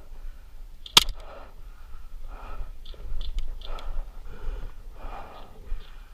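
A person breathing hard and fast, close to the microphone. There is one sharp crack about a second in.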